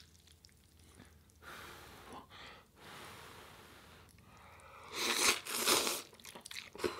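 A person blows twice on a chopstick-load of hot instant ramen noodles, then slurps them in loudly about five seconds in, with a little chewing near the end.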